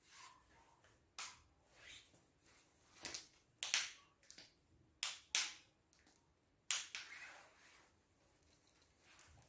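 A series of about eight faint, sharp knocks at uneven intervals, the loudest a little under four seconds in and near seven seconds in.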